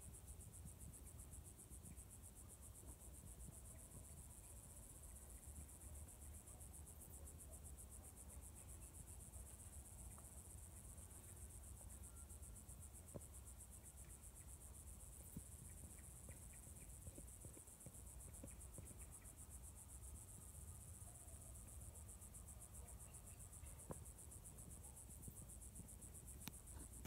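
Crickets trilling in a continuous, fast-pulsing high chirr, faint, over a low rumble.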